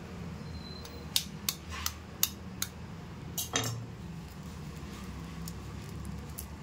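Quail egg shell being cracked and picked open with the fingers: about seven sharp clicks and taps in the first half, then only a low steady hum.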